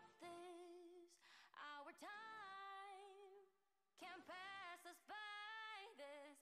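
Quiet background music: a woman singing a pop song in phrases of held, wavering notes, with little accompaniment to be heard.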